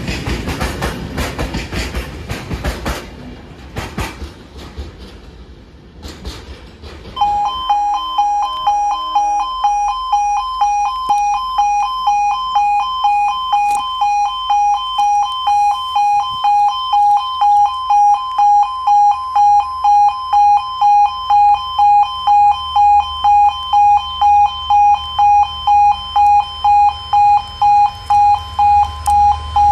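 Train wheels clattering over rail joints as the train runs past and fades away. About seven seconds in, a level crossing's electronic warning alarm starts, sounding two tones together in even pulses about one and a half times a second.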